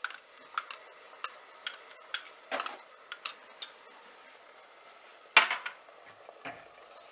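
Spoons and spatulas clinking, knocking and scraping against enamel saucepans and a glass bowl as a vegetable sauce is stirred and tomato puree is spooned in: a run of scattered sharp clinks, the loudest knock about five seconds in, over a faint sizzle.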